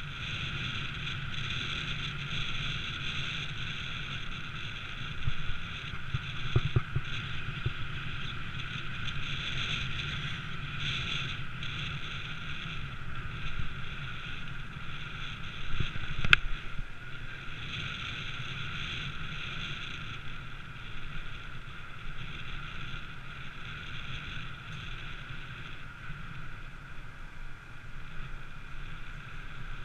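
Steady wind and road noise from a moving ride, with a few sharp knocks around six to seven seconds in and one louder knock about halfway through.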